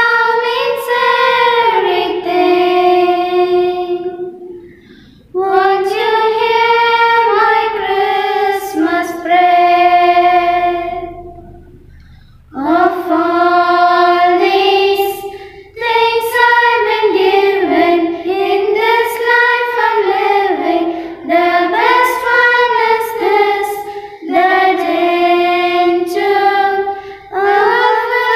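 A child's voice singing a slow melody in long held phrases, with brief pauses between them.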